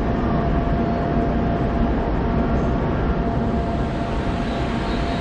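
A Toei Ōedo Line 12-000 series subway train standing at a platform, its equipment giving a steady hum and rumble with a constant tone.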